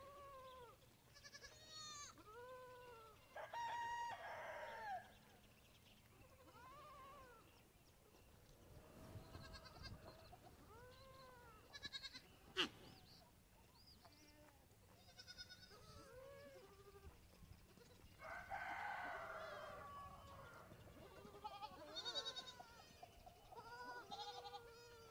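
Goat kids bleating on and off, many short calls that rise and fall in pitch, often overlapping. One sharp click about halfway through.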